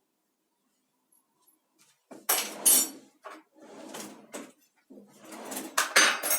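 Kitchen things being picked up and handled: after about two seconds of near quiet comes a run of clattering, rustling noises, loudest about two and a half and six seconds in.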